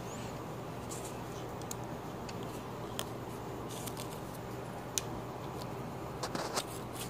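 Scissors snipping a plastic drinking straw into short pieces, with the pieces set down on a tabletop: a few faint, sharp clicks spread over a steady low hiss, the clearest about five seconds in.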